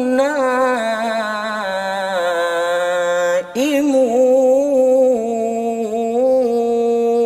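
A man reciting the Quran in melodic tarannum style, drawing out the closing words of a verse in long held notes that waver and ornament up and down. The voice breaks off briefly about three and a half seconds in, then carries on with another long phrase.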